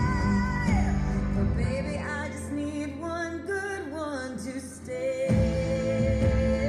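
Pop music with a held, sung melody over the accompaniment. The bass drops out for about three seconds, a couple of seconds in, then comes back in strongly.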